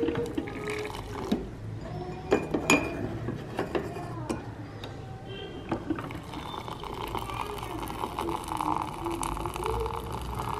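Hot water running from a water dispenser's tap into a mug through a steel tea strainer of tea leaves, the filling sound starting about halfway through and running steadily. A few clicks and knocks come first as the mug and strainer are handled.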